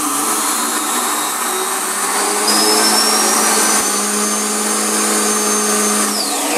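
Quadro HV0 high shear rotor-stator mill running at full speed while milling lemon pulp fibre, a loud steady machine noise with a low hum and a high whine. The whine climbs slowly in pitch, then drops quickly near the end.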